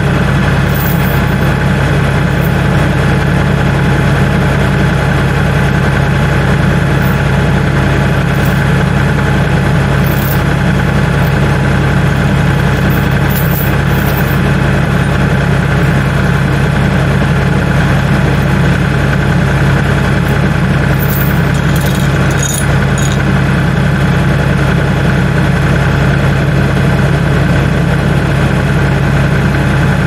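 Tractor engine idling steadily with a low, even hum. A few light metallic clinks sound over it, mostly about two-thirds of the way through, from a chain being handled at the loader bucket.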